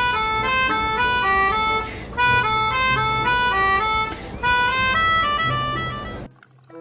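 Bus telolet horn playing a quick multi-note tune in three short phrases, with a reedy, harmonica-like tone, cutting off abruptly shortly before the end.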